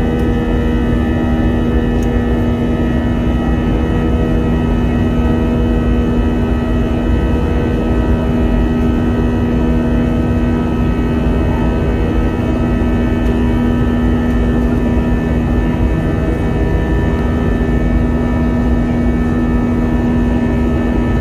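Steady hum inside a jet airliner's cabin: one strong low tone with a row of fixed higher tones over a deep rumble of engines and airflow, unchanging throughout.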